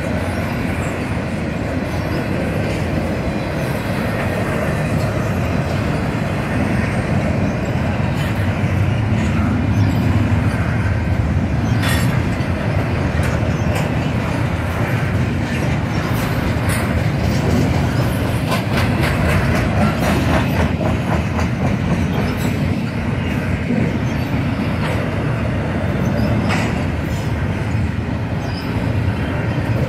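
Freight train cars rolling past at speed: a steady rumble of steel wheels on rail, with scattered clacks as wheels cross rail joints.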